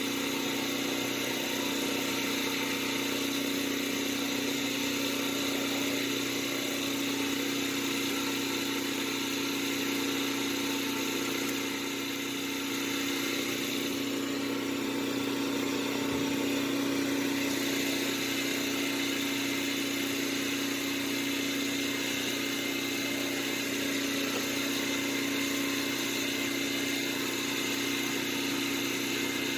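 A motor running steadily with a constant low hum, unchanged throughout.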